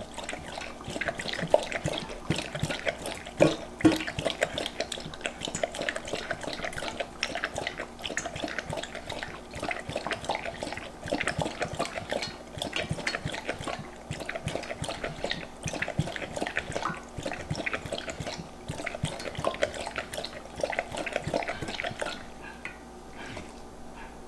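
Old English Sheepdog puppy lapping water from a metal bowl: a rapid, irregular run of wet laps and splashes that stops shortly before the end.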